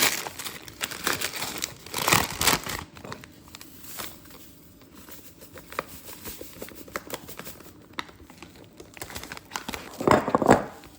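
A package of cornmeal mix being opened and handled, crinkling with some tearing. The rustling is louder about two seconds in and again near the end.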